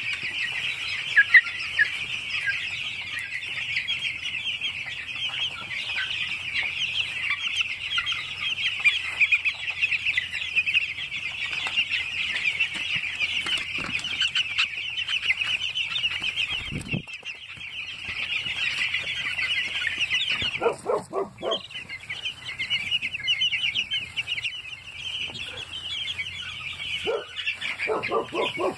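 A large flock of young meat chicks peeping continuously, many high calls overlapping into a dense chorus that thins out briefly about two-thirds of the way through.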